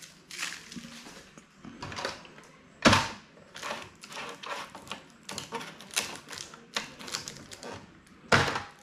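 Irregular plastic clicks and knocks from hands handling a new HP LaserJet Pro MFP M428dw laser printer. The loudest knock comes about three seconds in, as the scanner lid is shut, and another strong knock comes near the end.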